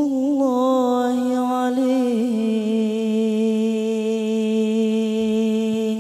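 A young man's solo voice singing a sholawat unaccompanied: one long note, ornamented with quick melismatic turns for about the first two seconds, then dropping slightly and held steady for the rest.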